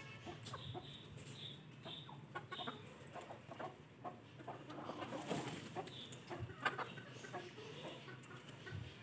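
Domestic chickens clucking softly, with scattered short clicks mixed in.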